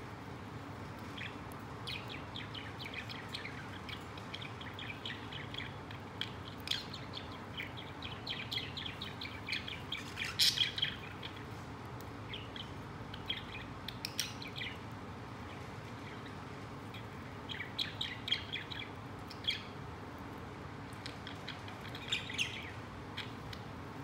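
Budgerigars chirping in rapid bursts of short, high chirps, with quiet gaps between the bursts and the loudest burst near the middle, over a steady low hum.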